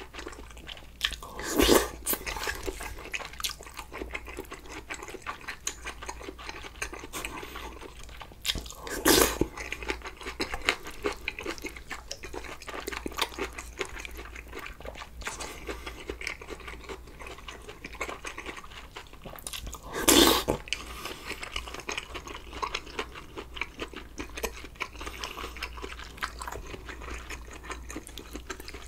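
Close-miked eating: a man chewing budae-jjigae stew with ramen noodles and kimchi, with steady small wet mouth clicks and crunches. Three louder, short bursts come about a second and a half in, near nine seconds and around twenty seconds.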